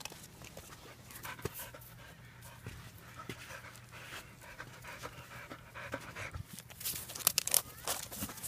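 A puppy panting steadily, with sharp scuffs and clicks in the last second or so.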